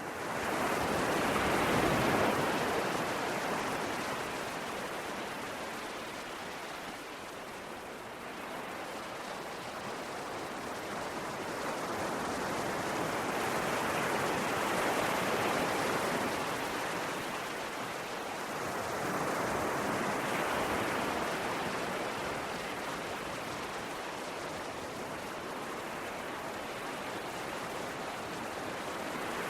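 Ocean waves on a shore: a continuous rush of surf that swells and eases in slow surges several seconds apart.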